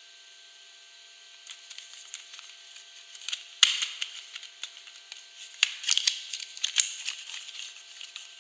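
Soap packaging being opened by hand: an irregular run of crisp crackles and clicks that starts about a second and a half in, with the sharpest snaps around the middle and again near the end.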